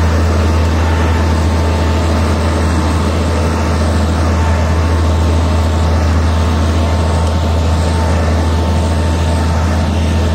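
An engine running steadily with a constant low drone and no change in speed.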